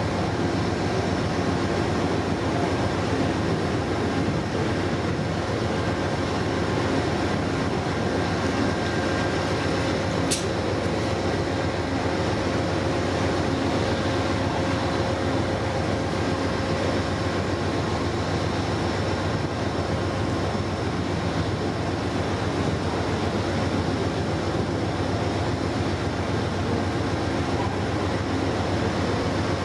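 A train running, a steady rumble with faint whining tones over it and a single sharp click about ten seconds in.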